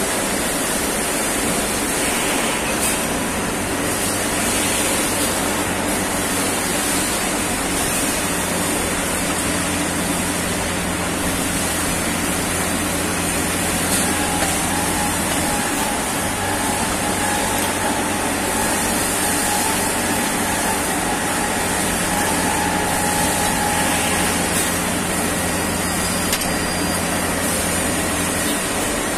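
CNC turning machine running a production cycle: a steady low hum of the spindle drive under a broad hiss. The hum breaks off briefly about halfway and stops shortly before the end. A faint higher whine comes in over the middle stretch.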